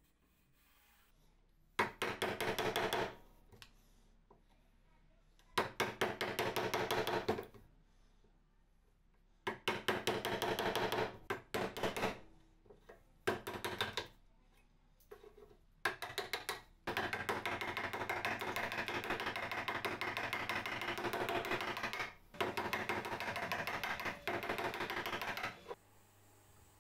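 Wood chisel cutting and scraping a notch in old painted timber, in repeated bursts of rapid scratchy strokes. The longest burst runs from about two-thirds of the way in until shortly before the end.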